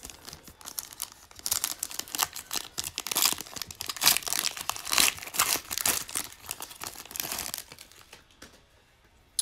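Foil wrapper of a Prizm Draft Picks trading card pack being torn open and crinkled by hand: a dense crackling that grows about a second and a half in, is loudest in the middle, and dies away near the end.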